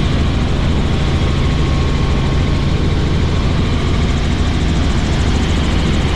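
Helicopter in flight, heard from inside the cabin: a steady, loud drone of rotor and engine with no change in pitch or level.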